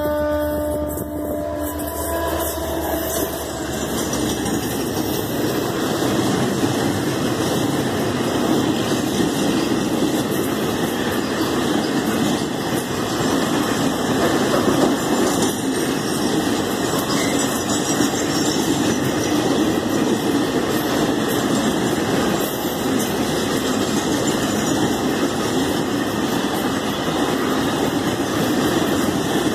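A freight train passes at close range. A horn note dies away in the first few seconds as the locomotive goes by, then a long string of loaded container flatcars rolls past with a steady, heavy rumble and clatter of wheels on the rails.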